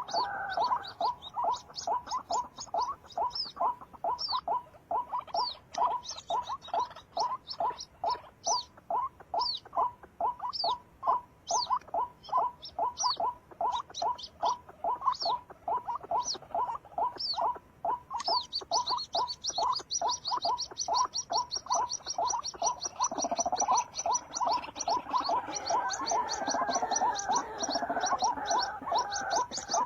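Animal calls: a long run of short, sharp calls at about three a second, with thin high chirps over them that become a fast, dense series a little past halfway through.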